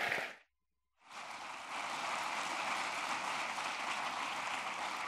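Audience applauding. The applause drops out completely for about half a second just after the start, then comes back and carries on steadily.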